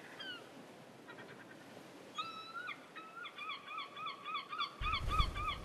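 A flock of geese honking. The calls begin about two seconds in and build into a fast, even run of honks, about three a second, getting louder. Wind rumbles on the microphone near the end.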